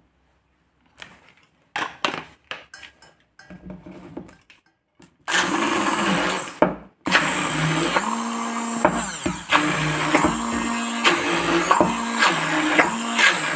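A few clicks and knocks of handling, then a handheld immersion blender starts about five seconds in, blending a stiff chocolate and avocado paste in a stainless steel bowl. It cuts out briefly, then runs steadily on, its pitch stepping up and down as it works through the dense mixture.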